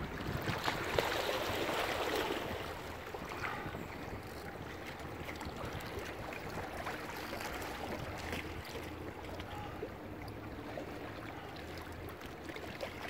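Steady rushing noise of wind and water, louder for the first couple of seconds and then even.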